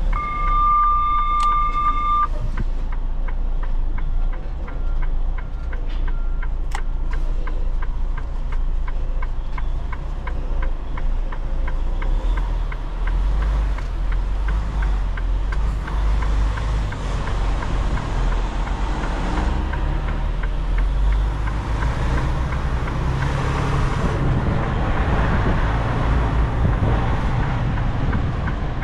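Semi truck's diesel engine running steadily, growing louder and noisier in the second half as the truck gets moving. A steady electronic beep tone sounds for about the first two seconds.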